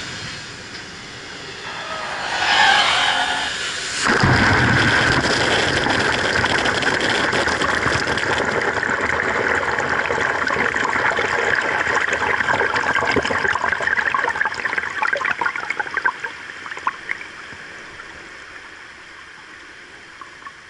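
Launch wave from a side-launched ship: a rush of water swells about two seconds in, then the wave hits suddenly about four seconds in and washes over the road and the camera as a loud, steady rushing and splashing. After about twelve seconds it dies away into scattered splashes and trickling as the water drains off the road.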